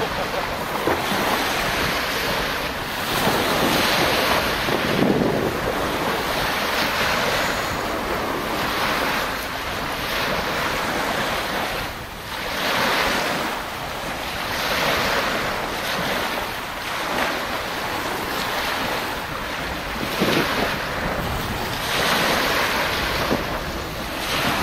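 Ocean surf breaking and washing up a sandy beach, with wind buffeting the microphone; the rush swells and eases every few seconds as waves come in.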